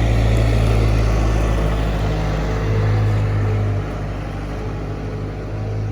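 Vehicle engine running steadily with a low drone, easing slightly in level about four seconds in.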